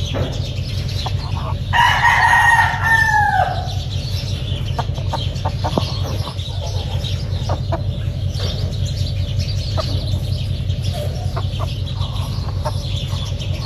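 A gamefowl rooster crows once, about two seconds in, the call lasting under two seconds and dropping in pitch at the end. A steady low rumble and scattered small clicks run underneath.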